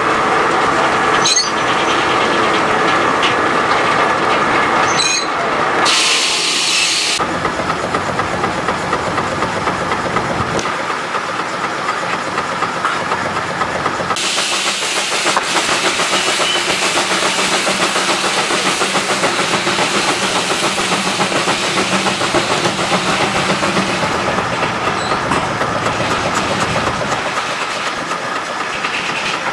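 Sawmill machinery running steadily, then, from about 14 seconds in, a Rumely steam traction engine running with steam hiss and a quick, even beat of exhaust.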